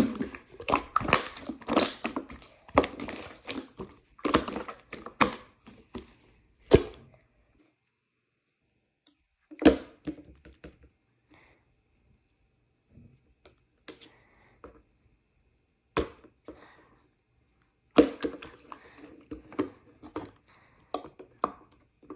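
Slime being pressed and stretched by hand, giving dense runs of sharp clicks and pops for the first seven seconds or so, then scattered single pops, and another run of pops near the end.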